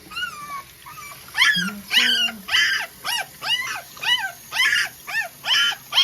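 Young Labrador retriever puppy crying: a few faint falling whines, then from about a second and a half in a run of loud, high-pitched yelps about two a second, each rising and falling in pitch. The puppy is distressed at being rinsed during its first bath.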